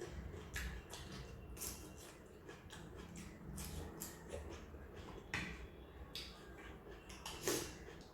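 Eating sounds: chewing and lip smacks, a string of short crisp mouth noises at irregular intervals, with a louder one about five seconds in and another near the end.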